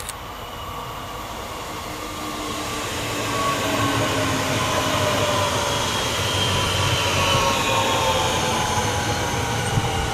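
DB Regio class 440 (Alstom Coradia Continental) electric multiple unit running past: wheels rumbling on the rails, with the whine of its electric traction drive slowly falling in pitch. It grows louder about three seconds in as the train comes alongside.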